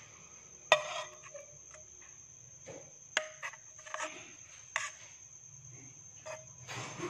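A spoon scraping and clinking against the rim of a glass bowl while thick passion fruit syrup with seeds is scraped out: a few sharp clicks and taps, the loudest about a second in, over a faint steady high whine.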